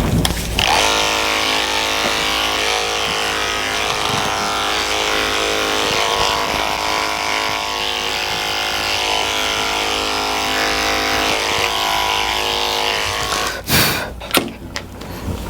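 Electric dog grooming clippers fitted with a number 10 blade, running with a steady hum as they clip a poodle's coat. They start about a second in and stop near the end, followed by a couple of knocks.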